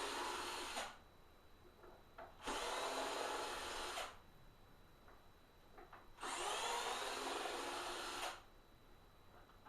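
Electric drill running in three bursts with short pauses between: the first stops about a second in, then two more runs of about one and a half and two seconds.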